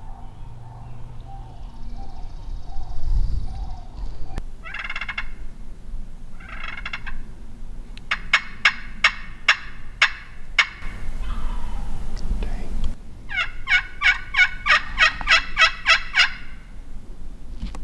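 Turkey calling: hen-style yelps on a hunter's turkey call. Two short calls come about four and six and a half seconds in, then a quick run of sharp notes, about four a second, from about eight seconds, and after a pause a longer, denser run of notes near the end.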